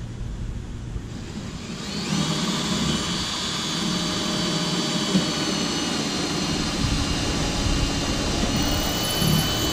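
Cordless drill running steadily with a high whine as it bores through a canoe gunwale to fasten a yoke, winding up to speed about a second in.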